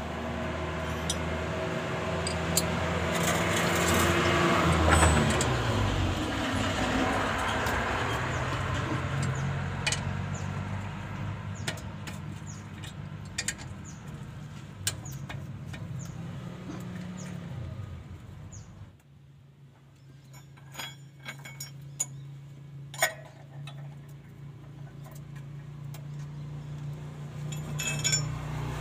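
Scattered sharp metal clicks and clinks of a wrench working the bolts of a car's clutch pressure plate, over the low hum of an engine running in the background that swells in the first few seconds, dips in pitch, and drops back about two-thirds of the way through.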